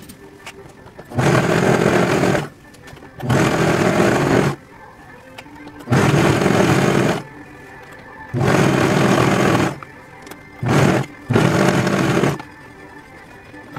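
Serger (overlock sewing machine) running in short runs of about a second each, six times, with brief stops between as fabric is fed through and stitched.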